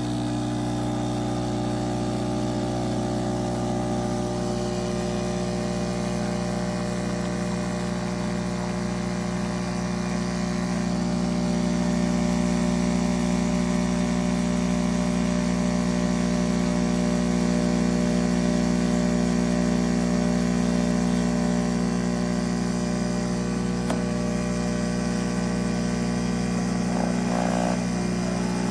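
De'Longhi Stilosa EC260 espresso machine's vibratory pump running with a steady buzz as it pushes water through the machine. It gets slightly louder partway through.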